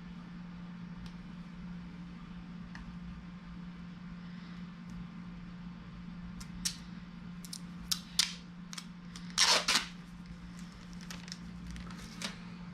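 Hands working on flexible HVAC ductwork: a scatter of sharp clicks from about halfway, then two louder short crackling rasps about three-quarters in, over a steady low hum.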